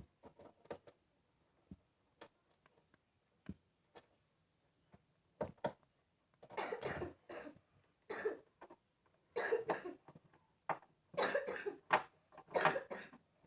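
A person coughing hard, in about five short coughing fits packed into the second half, after a few faint clicks in the first half.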